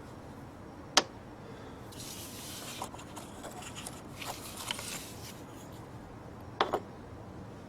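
Hands-on work noises: one sharp click about a second in, a few seconds of rubbing and scraping, then a quick double clack near the end, as parts and tools are handled around a car battery.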